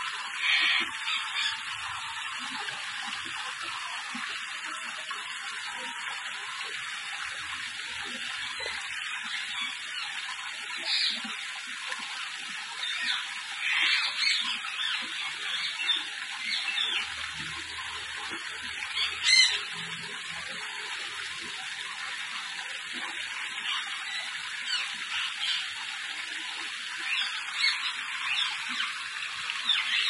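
Steady running, splashing water, with parrots giving several short, sharp calls over it, the loudest about two-thirds of the way through.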